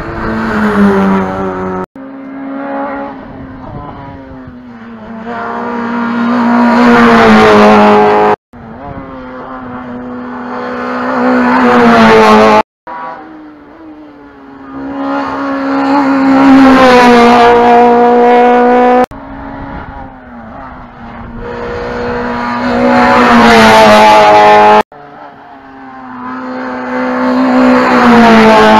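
A string of hillclimb race cars at full throttle, one after another. Each engine grows steadily louder as the car climbs toward the corner, and each pass is cut off abruptly before the next begins, about five in all.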